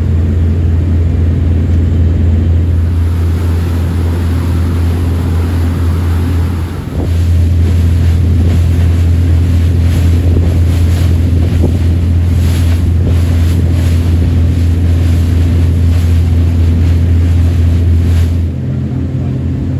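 Charter boat's engine running steadily under way, with wind and water rushing past. The engine note dips briefly about seven seconds in and eases off near the end.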